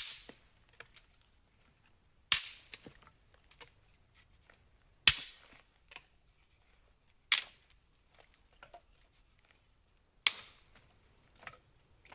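Five sharp cracking knocks, evenly spaced about two and a half seconds apart, each dying away quickly, with a few faint clicks between them.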